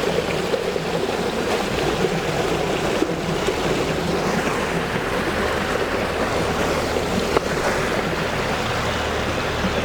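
Water rushing steadily through a mill sluice opened to raise the flow to the water wheel, with a low steady hum underneath. One sharp knock about seven seconds in.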